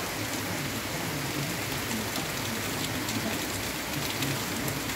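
Heavy rain falling steadily, an even hiss, with a few sharp drop ticks near the end.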